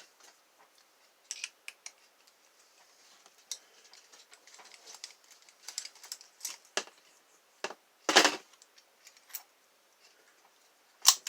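Small metallic clicks and taps from a pin-tumbler lock being taken apart by hand, with tools and small parts clinking, and two louder clacks, one about 8 seconds in and one near the end.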